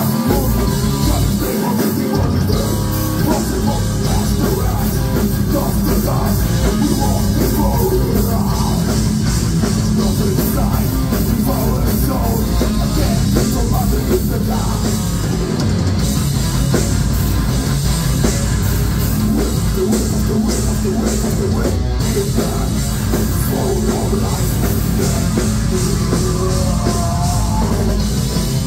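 Metal band playing live: distorted electric guitar, bass guitar and drum kit, loud and dense with no breaks, heard from among the audience.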